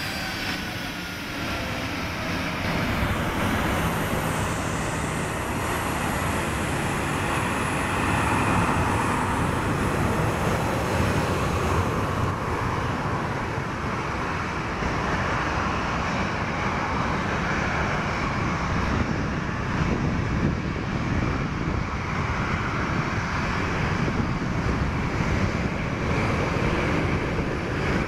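Jet engines of a Boeing 737 running at taxi power: a whine falling in pitch in the first couple of seconds, then a steady roar of jet noise that grows louder from about eight seconds in as the aircraft turns its exhaust toward the listener.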